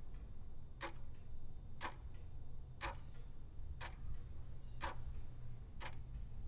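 Clock-tick sound effect of a countdown timer, one sharp tick each second, over a steady low hum.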